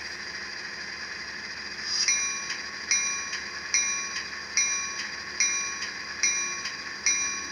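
Locomotive bell from a LokSound Select Micro sound decoder, played through the N-scale EMD E8B model's small built-in speaker. It starts about two seconds in and rings steadily, about one strike every 0.8 s, about seven strikes in all, over the decoder's steady diesel idle.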